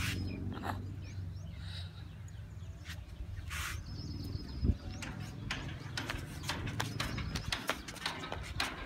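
Flip-flops slapping on a concrete rooftop as a toddler walks, a quick irregular patter of light clicks in the second half. A low rumble runs under the first half.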